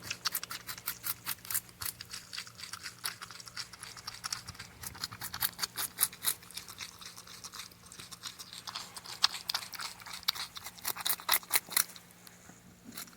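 Porcupine chewing and gnawing on food: a rapid, uneven run of small crunching clicks that thins out briefly near the end.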